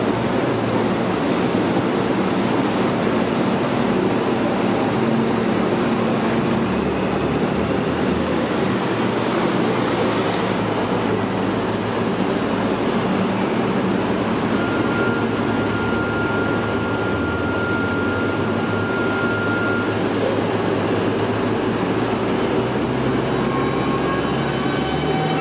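New York City subway train on an elevated line, a steady rumble of cars rolling on the rails. A thin steady whine sounds for several seconds around the middle, and wheels begin to squeal near the end.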